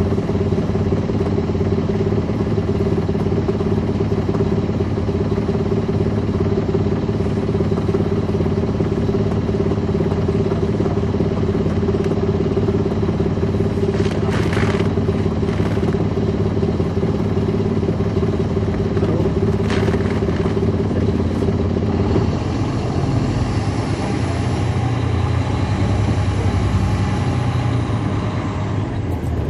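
Caterpillar C13 diesel engine of a NABI 40-foot suburban transit bus, heard from on board, running steadily. About two-thirds of the way through, the engine note drops and changes. There are a couple of brief rattles along the way.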